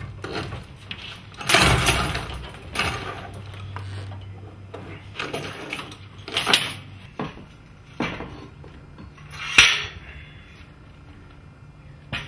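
Garage door extension springs and their hook hardware being unhooked and handled, giving a string of sudden metal clanks and rattles. The loudest come about a second and a half in and near ten seconds in.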